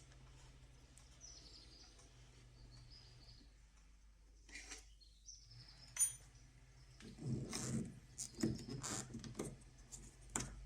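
Hand work on a car door's exterior handle: a sharp click about six seconds in, then a few seconds of scraping, rattling and clicking of the handle's parts. Faint bird chirps can be heard in the first few seconds.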